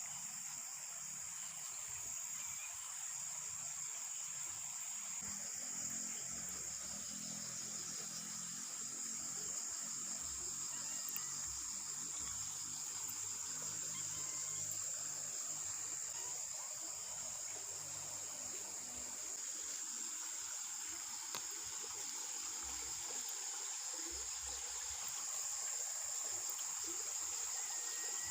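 Insects chirping in a steady, high-pitched chorus over a constant background hiss.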